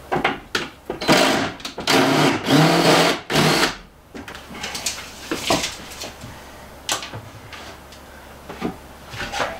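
Cordless 18V drill/driver running in about four short bursts as it drives screws into an upper wooden cabinet, stopping after about four seconds. A few light knocks follow.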